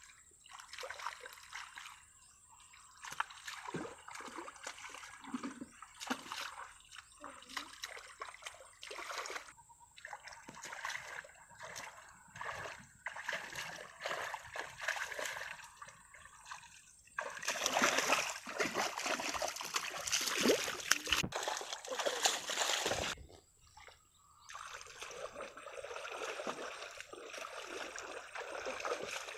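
Hands splashing and sloshing in shallow muddy water while groping through the mud for fish, in irregular bursts, with a louder spell of vigorous splashing a little past the middle.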